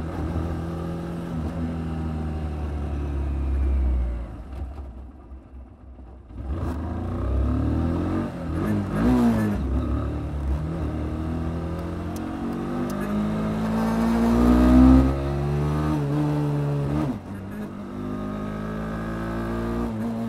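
Kymco Quannon 125 single-cylinder four-stroke motorcycle engine under way. It eases off a few seconds in, then pulls up through the revs as the bike accelerates, with a sudden drop in pitch near the end, typical of an upshift.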